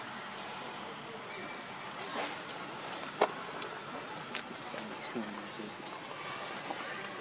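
Steady, high-pitched drone of insects in forest undergrowth. A single sharp click a little after three seconds in.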